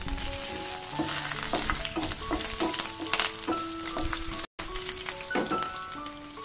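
Green chillies and curry leaves sizzling in hot ghee with spices for a tadka, stirred now and then with a wooden spatula. A simple background melody plays over it, and the sound drops out for an instant about four and a half seconds in.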